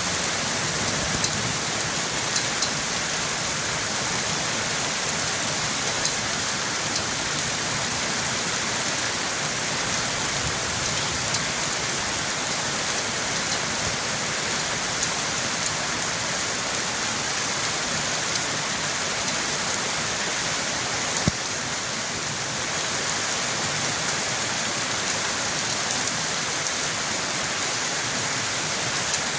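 Steady rain falling and pattering on a surface, with individual drops ticking now and then.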